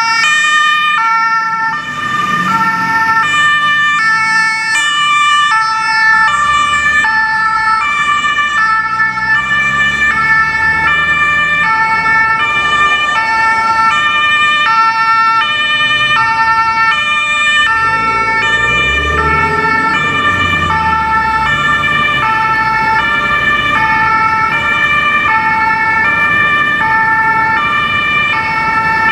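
German two-tone Martinshorn siren on a MAN fire-service incident command truck, alternating steadily between a high and a low note about every three quarters of a second. Underneath, an engine revs up twice as the truck pulls away, about two seconds in and again at around eighteen seconds.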